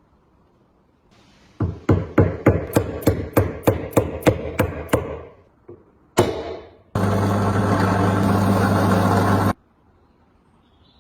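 About a dozen quick hammer blows, three or four a second, then one more blow, followed by an electric power tool running steadily for about two and a half seconds before it cuts off.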